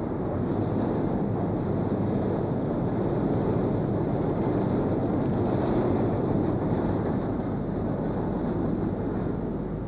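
Steady mechanical din of car body-shop production-line machinery, a dense low rumble with no single distinct event.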